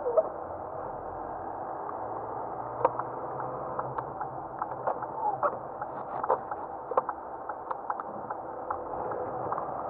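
Car cabin noise while driving slowly over packed snow: a steady hum, with irregular short clicks and crackles from about three seconds in.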